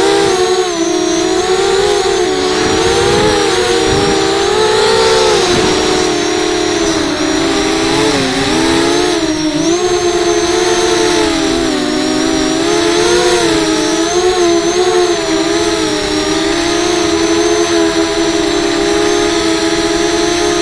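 FPV quadcopter's electric motors and propellers whining, heard from its onboard camera. Several close tones rise and fall together as the throttle changes through fast, low flying.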